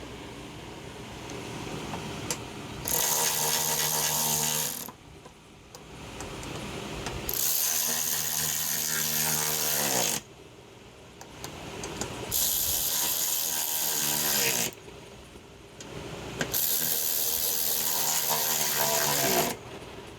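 A power drill running in four separate bursts of two to three seconds each, its motor pitch dropping as it winds down at the end of each burst.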